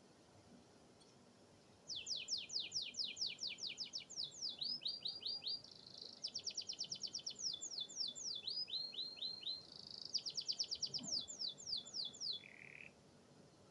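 Domestic canary singing one long song, starting about two seconds in: runs of fast falling whistles and rapid trills, ending on a short, lower buzzy note.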